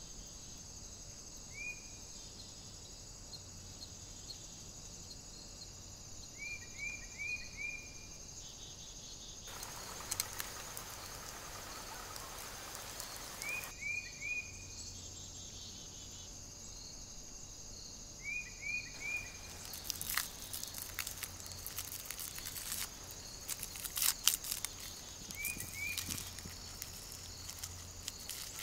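Steady high-pitched drone of insects in a meadow, with short chirps repeating in groups of three or four. Close handling noise over it: a few seconds of rustling about ten seconds in, then crackling clicks in the second half as charred skin is peeled off coal-roasted peppers and onion.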